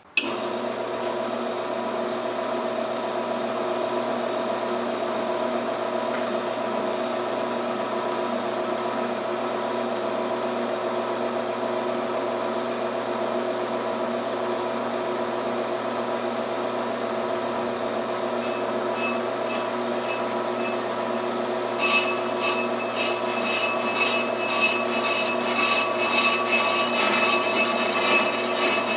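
Ammco 4000 brake lathe switched on and running steadily, its motor and gearbox giving a steady hum with a whine as it spins a brake rotor. About 22 seconds in, a rough, crackly scraping joins as the cutting bits start cutting the rotor face.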